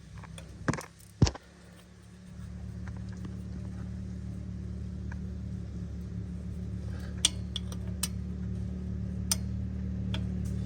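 Hand tools and metal engine parts clinking sharply a few times, with a low steady hum that comes in about two seconds in and keeps going.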